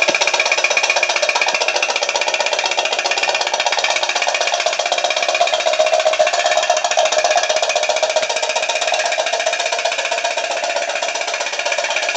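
Homemade putt-putt (pop-pop) boat's candle-heated steam engine, with a beer-can tin diaphragm, running: a fast, even rattling tick that keeps up steadily as the boat moves through the water.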